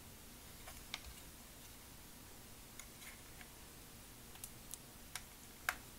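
Scattered sharp plastic clicks and taps as the parts of a Generation Toy GT-2 Tyrant transforming figure are handled and pegged together; about seven clicks, the loudest one shortly before the end.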